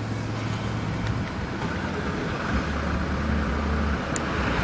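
Diesel engine of an Alexander Dennis Enviro400 Trident double-decker bus idling, a steady low hum.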